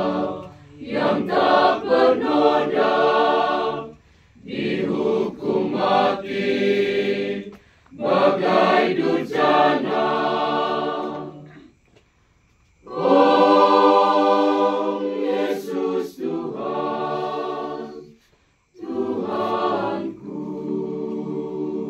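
Church choir singing a Good Friday hymn unaccompanied, in several phrases separated by short pauses for breath, with the longest pause about halfway through and a long held chord at the end.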